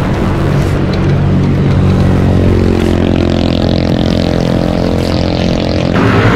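Motor vehicle engine running steadily on the move, close and loud, its hum holding a steady pitch from about two and a half seconds in, with road noise.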